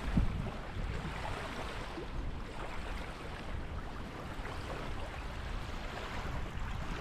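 Wind rumbling on the microphone over small lake waves lapping on a shingle shore, a steady outdoor wash with no single event standing out.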